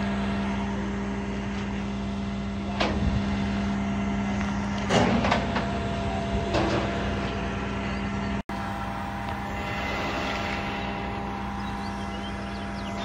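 Elliott boom truck running steadily with a constant engine hum, with a few short metal knocks and clanks about three, five and six and a half seconds in.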